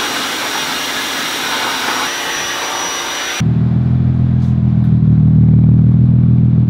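A pressure washer sprays with a steady hiss for about three and a half seconds. It cuts abruptly to a Nissan 350Z's 3.5-litre V6 idling steadily through a single-tip aftermarket Tomei cat-back exhaust, a louder, low, even drone.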